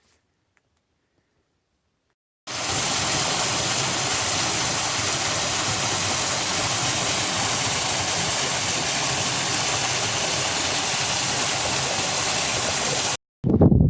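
Steady, even rushing noise that starts suddenly about two and a half seconds in and cuts off suddenly near the end, after near silence at the start.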